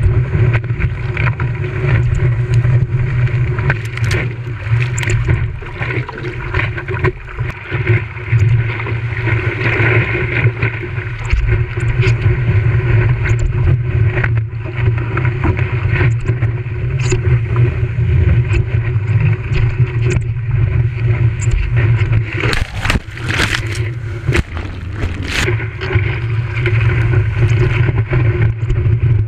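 Strong onshore wind buffeting the camera microphone in a steady low rumble, over the wash of choppy surf and water sloshing around the paddleboard. A cluster of sharper splashes or knocks comes about two-thirds of the way through.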